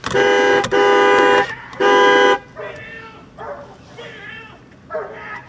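Car horn honked three times in quick succession, the middle blast slightly longer, followed by a dog barking.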